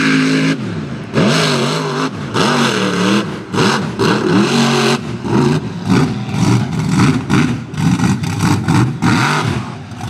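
Blown 540 cubic-inch big-block V8 running on alcohol with a 14-71 supercharger, revved hard again and again as the mud truck spins through the bog. The revs rise and fall over and over, in quicker short blips in the second half.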